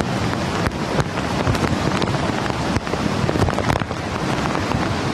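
Heavy rain pouring down: a loud, steady hiss scattered with many sharp clicks, with wind buffeting the microphone.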